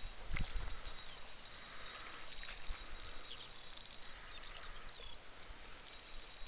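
Faint steady wash of water along the shore, with a few light ticks.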